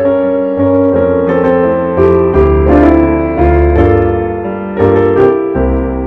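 Piano music: a melody played over held chords, with no voice.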